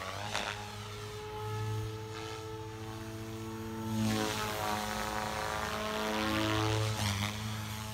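Converted Goblin 420 electric RC helicopter in flight, its rotor head spun at about 3400 rpm, giving a steady pitched hum. It gets louder about halfway through as it passes closer.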